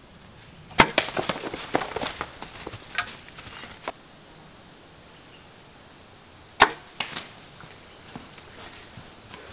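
A compound bow shot at an elk: a sharp crack of the string and the arrow striking about a second in, followed by about three seconds of rapid clattering as the hit elk bolts through the brush. A second bow shot cracks near the end, followed by a couple of smaller knocks.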